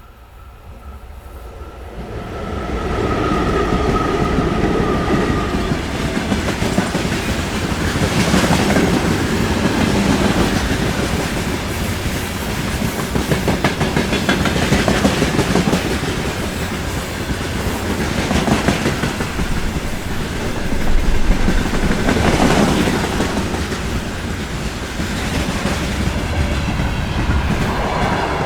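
Freight train rolling past close by: the rumble builds over the first few seconds, then the wagons' wheels clack over rail joints, with regular swells every few seconds as wagons go by.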